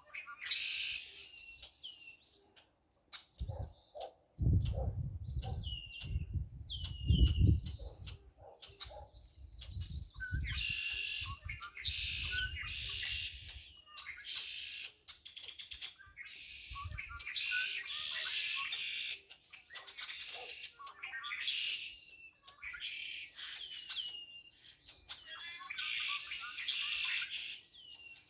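Wild birds chirping and calling, with repeated short downward-hooked notes and stretches of dense chattering song. Low rumbling bumps run underneath from about four to fourteen seconds in.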